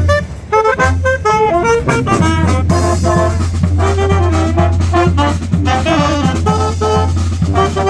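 Street brass band playing live: saxophones and brass horns playing a jazzy tune over a steady low bass.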